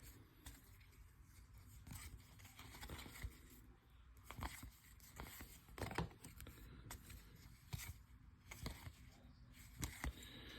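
Faint handling of baseball trading cards: soft scraping and scattered light clicks, about one a second, as the cards are slid and flipped through by hand.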